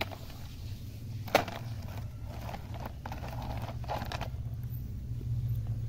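Plastic toy dump truck being dragged over gritty dirt, its wheels and body scraping and crunching on the grit in short spells, with one sharp click about a second and a half in.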